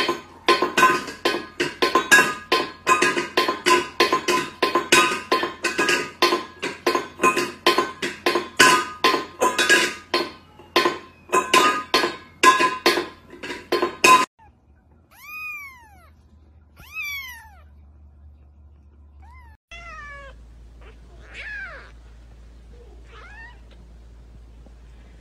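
A steel pet bowl being knocked and clinked rapidly by a cat at it, about three knocks a second with a metallic ring, stopping suddenly about 14 seconds in. After that a cat meows about five times, each call rising and falling in pitch.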